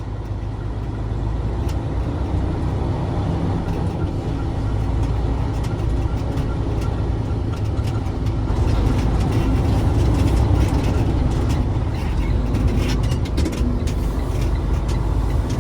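Truck engine and road noise as the truck pulls away, running steadily and growing gradually louder as it picks up speed.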